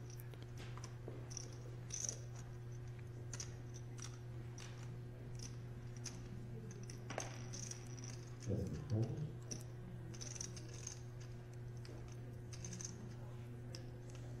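Poker chips clicking as a player handles his chip stacks: soft, scattered clicks over a steady low hum, with a brief murmur of a voice about eight and a half seconds in.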